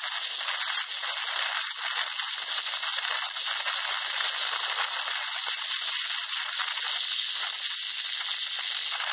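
Sped-up running noise of a 7.5-inch-gauge ride-on model train travelling along its track: a dense, steady, high-pitched rattle and hiss.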